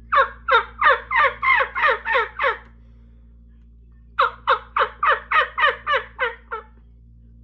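Stacked frame diaphragm turkey mouth call, two reeds held in separate frames, blown in two runs of yelps with a pause between. Each run has about eight notes at roughly three a second, each note dropping in pitch.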